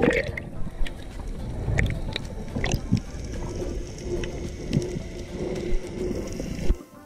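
Underwater ambience picked up by a diver's camera: a low rumble of moving water with scattered sharp clicks and a faint steady hum through the middle. It drops off abruptly near the end.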